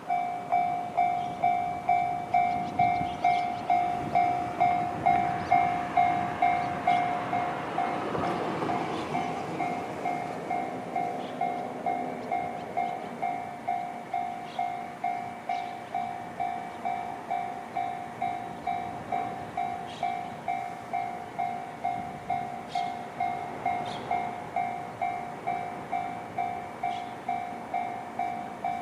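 Japanese level-crossing electronic warning bell in the JR standard tone starts up and rings steadily, about two strikes a second. A passing vehicle swells and fades under it, loudest about eight seconds in.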